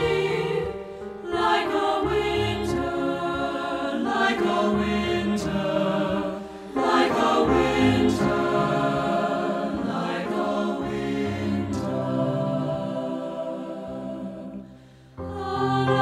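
Three-part (SAB) choir singing a slow choral piece in long phrases, with piano accompaniment. Near the end the sound thins into a brief pause, then voices and piano come back in together.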